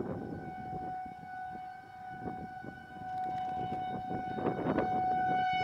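Outdoor tornado warning siren sounding a steady, even-pitched wail, growing louder toward the end.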